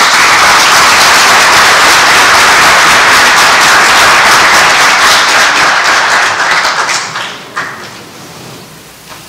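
Audience applauding, the clapping dying away after about seven seconds.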